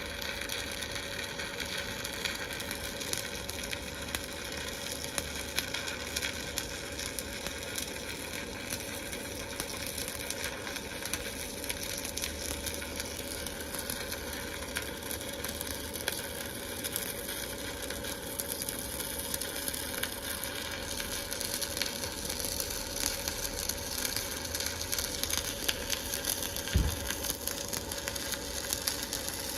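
Arc welding on the truck's steel frame plates: a steady, even crackle and sizzle of the arc as a weld bead is run, with a single low thump near the end.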